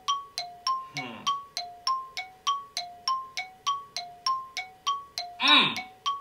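Light background music: a struck, bell-like two-note pattern repeating about three notes a second. Two short muffled vocal sounds break in, a faint one about a second in and a louder one near the end.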